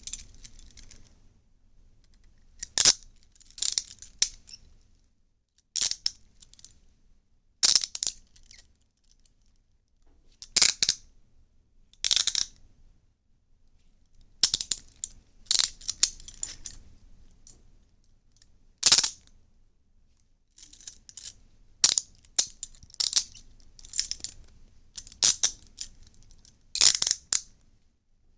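Metal handcuffs clicking and ratcheting in short, sharp bursts, irregularly, every second or two, some in quick clusters.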